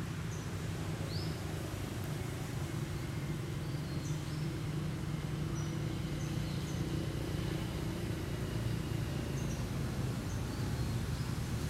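Forest ambience: a steady low rumble with a few short, high chirps scattered through it, likely from birds.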